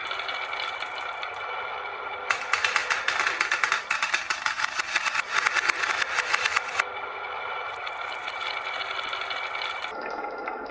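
Marbles clattering rapidly along a marble-run track for about four and a half seconds, starting about two seconds in, over a steady hum.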